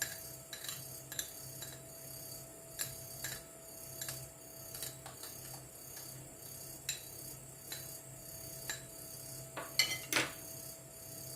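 A spoon stirring a drink in a cup, clinking lightly against the side at irregular intervals, with a louder cluster of clinks near the end.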